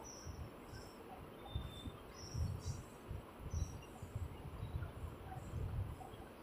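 Marker strokes on a whiteboard while a cube is drawn: soft dull knocks, with a few faint, short high chirps.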